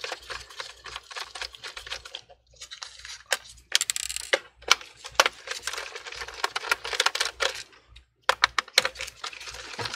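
Irregular clicking and rattling of a Phillips screwdriver and small screws against a laptop's plastic bottom case as a screw is backed out and the tool is set down, broken by two short pauses.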